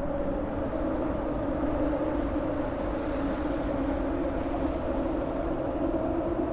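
Steady droning hum from traffic crossing the 25th of April Bridge's steel-grated road deck, held at two pitches that creep slightly upward, with wind rumbling on the microphone underneath.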